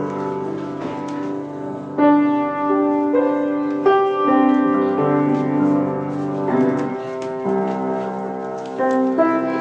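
Piano playing a slow tune in held chords, a new chord struck every second or two.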